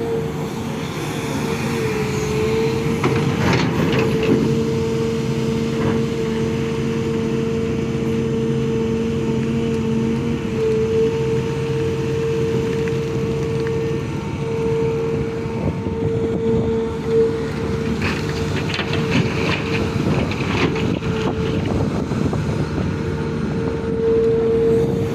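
Sumitomo SH350LC excavator running under work, its diesel engine with a steady high whine over it. Scattered knocks and clanks come about three to four seconds in and again in the last third.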